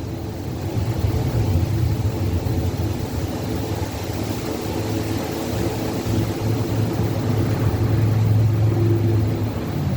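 Steady drone of a car engine with road noise, under a continuous rush of wind.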